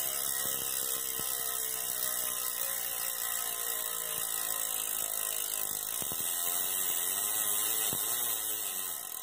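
Rear bicycle freehub buzzing as the wheel spins freely, its ratchet clicking so fast it runs together into a steady high buzz. The pitch sinks slowly as the wheel slows, wavers from about six seconds in, and the sound fades near the end.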